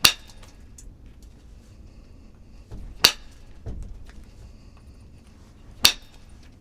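Flintknapping: three sharp, ringing strikes on a stone being flaked, about three seconds apart.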